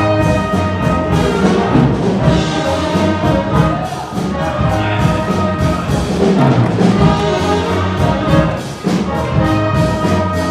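Orchestral music with brass, trumpet and trombone, over a steady beat.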